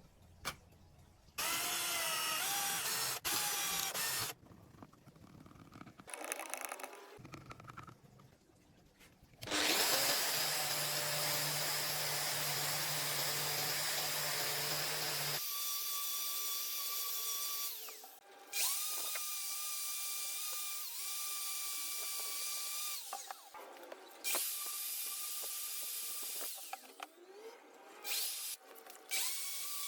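Electric drill running in bursts, each start rising in pitch before settling into a steady whine, and cutting off and restarting several times. In the middle comes about six seconds of louder, harsher cutting noise.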